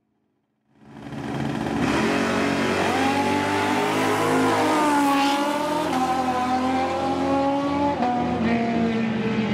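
Drag racing car engines revving at high rpm, fading in about a second in and then running loud and steady, with the pitch shifting a few times.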